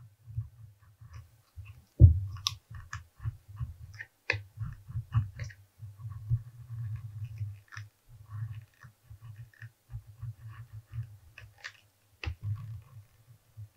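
Edge beveler shaving the edge of vegetable-tanned leather in a string of short crunching scrapes, over a low, uneven hum. A thump about two seconds in is the loudest sound, and a sharp knock comes near the end.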